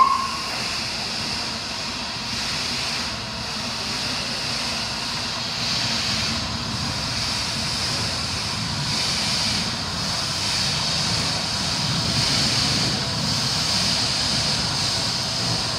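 Steam locomotive approaching through a tunnel, unseen: a steady hiss over a low rumble that slowly builds. A brief sharp blip right at the start.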